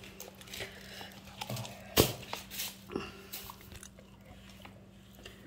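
Scattered light clicks and clinks of a spoon against dishes as food is served, the sharpest about two seconds in.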